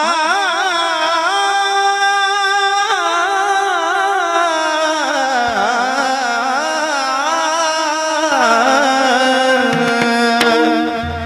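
Marathi devotional (Warkari) singing: one voice draws out long, wavering, ornamented phrases without clear words, over steady sustained accompaniment. A low drum stroke sounds near the end.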